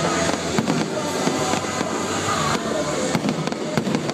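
Fireworks display going off: a dense run of sharp bangs and crackles, with music playing underneath.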